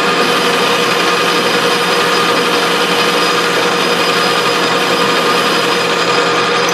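Metal lathe running while a narrow parting tool cuts a thread-relief groove into a lead-screw blank: a steady machining sound with constant whining tones over the cutting noise.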